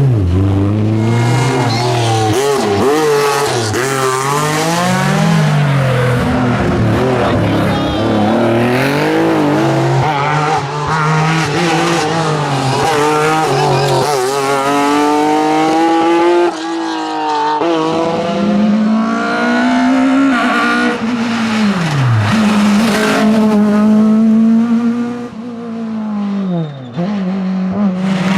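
Rally cars at full throttle, engines revving high, climbing through the gears and dropping back under braking, over and over. Tyres squeal in places.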